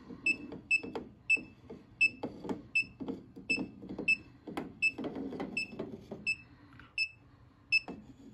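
Klein ET310 circuit breaker finder's receiver chirping short, high beeps, about two to three a second, as it picks up the transmitter's signal while being scanned along the breakers. Clicks and rubbing come from its tip knocking and sliding over the plastic breaker faces.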